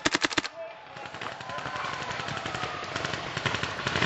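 A paintball marker fires a rapid burst of about seven shots close by right at the start. After that, many paintball markers keep firing at a distance, their shots overlapping.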